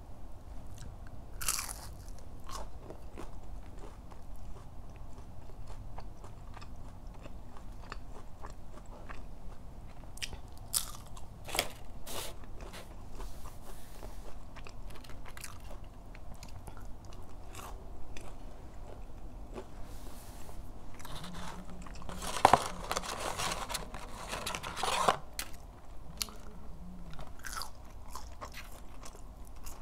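Close-miked eating of McDonald's chicken nuggets and french fries: crunchy bites and chewing, with a sharp crunch every few seconds. A longer, louder stretch comes about two-thirds of the way through.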